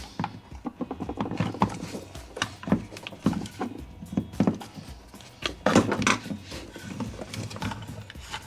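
Irregular clicks and knocks of a hand tool and plastic parts as the band clamps on a dishwasher's rubber pump fitting are loosened.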